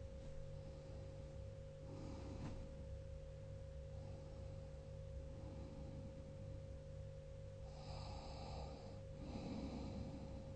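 Sleep snoring: slow breaths drawn in with a hiss like a vacuum cleaner sucking air, the strongest two near the end, a high hissing intake followed by a lower rasping snore, over a steady faint hum.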